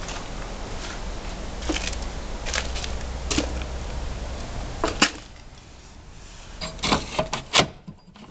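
Rustling handling noise with scattered clicks, then a run of sharp metallic clicks and knocks, loudest about five seconds in and again near the end, as an old mechanism with a handle is worked by hand.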